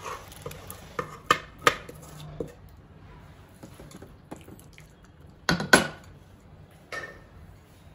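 Wooden spatula knocking and scraping against stainless-steel cookware as thick chicken curry is scooped from a pressure cooker into a steel bowl and spread out. It comes as a string of sharp knocks, the loudest a pair about five and a half seconds in.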